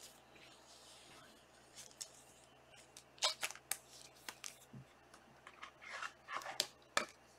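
Trading cards being handled and flipped through, a scatter of short clicks and rustles that bunch together about three seconds in and again near the end.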